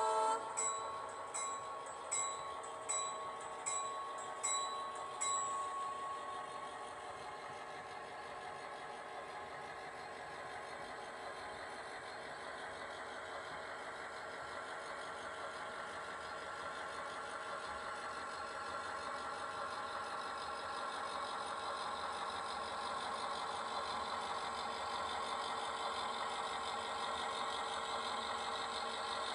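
Model diesel locomotive sound: the bell rings about seven times over the first five seconds or so and stops, then a steady diesel engine drone with rolling wheel noise grows louder as the locomotives approach.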